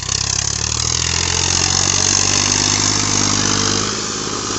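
Eicher 551 tractor's diesel engine running hard under load as it pulls a loaded sand trolley. The engine revs up as the sound begins and eases off briefly near the end.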